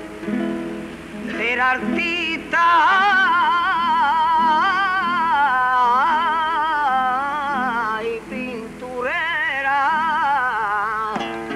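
Andalusian gitano flamenco song: a man sings long, heavily ornamented phrases that waver in pitch, over a Spanish acoustic guitar. The main phrase is held from about two and a half seconds in to about eight seconds, and a second phrase starts about nine seconds in.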